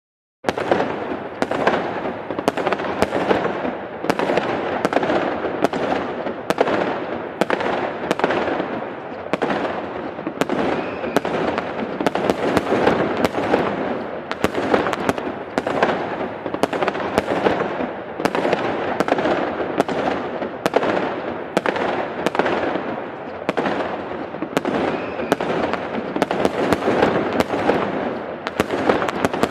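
Large fireworks display: a dense, continuous barrage of bangs and crackling shell bursts. It starts abruptly about half a second in, after a brief silence.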